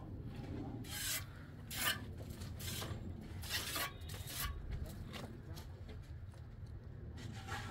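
Rough scraping strokes, several in quick irregular succession, then a pause and one more near the end.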